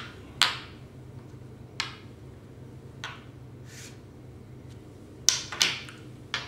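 Xiangqi pieces being set down and moved on a board, giving several sharp clacks spread over the seconds, a softer sliding swish in the middle, and three clacks close together near the end.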